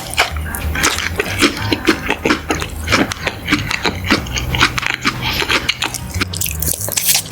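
Close-miked eating sounds: food being bitten and chewed with a rapid, irregular run of crisp crunches and wet mouth clicks.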